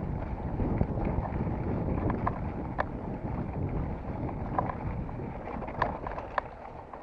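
Wind buffeting the microphone during a mountain bike ride on a dirt trail, a steady rumbling rush with scattered sharp clicks and rattles from the bike and trail.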